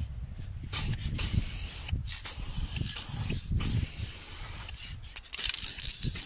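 Aerosol spray can of paint spraying onto a car's steel wheel rim in several hissing bursts of about a second or more each, with short pauses between them.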